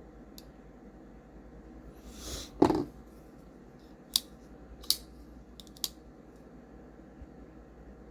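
TRM Shadow folding knife being worked by hand: a brief swish and one loud snap about two and a half seconds in, then three sharp metallic clicks spaced under a second apart.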